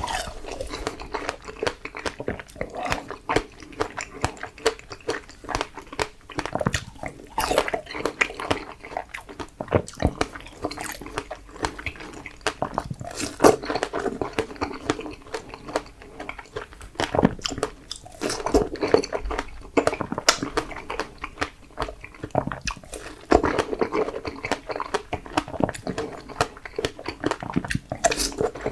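Close-miked biting and chewing of fresh strawberries: repeated wet, juicy bites and mouth smacks with frequent clicks.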